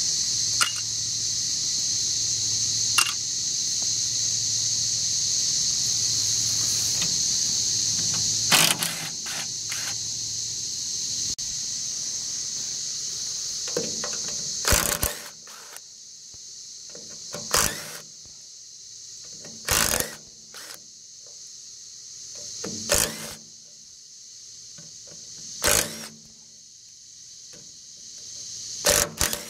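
DeWalt 20V cordless 3/8-inch impact wrench (rattle gun) hammering in short bursts a few seconds apart, mostly in the second half, as it undoes the bolts on the side of a steel hydraulic tank.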